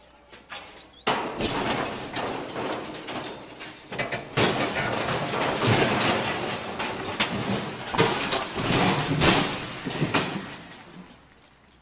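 A tower crane toppling over: loud, dense crashing noise with many sharp knocks that starts suddenly about a second in, peaks late, and fades near the end.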